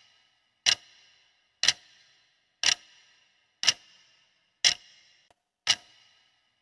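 Clock-ticking countdown sound effect: six sharp ticks, one each second, each with a brief ring.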